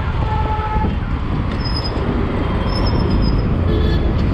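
Motorcycle riding through heavy city traffic: a steady engine and road rumble, with a vehicle horn sounding for about the first second.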